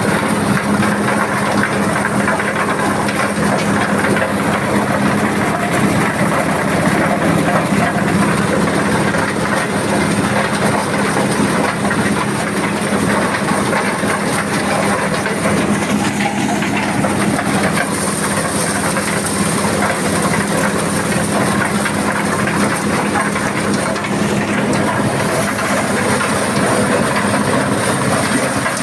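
Corn sheller machine driven by an 8 HP diesel engine running steadily under a continuous hum, with a dense, even rattle.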